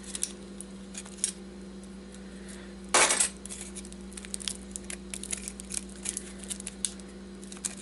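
Thin steel transformer-core laminations clicking and clinking as they are worked loose and pulled out of the stack one by one, with a louder metallic scrape and clatter about three seconds in. A steady low hum runs underneath.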